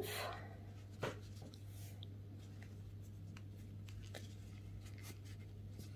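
Faint rubbing and scratching of a metal crochet hook drawing thick T-shirt yarn through stitches, with scattered soft ticks and one sharper click about a second in, over a steady low hum.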